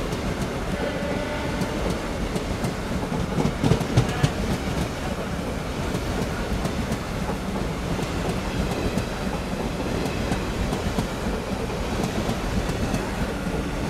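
Express passenger train running on the track: a steady rumble with the wheels clicking over rail joints, and a brief cluster of louder knocks about four seconds in.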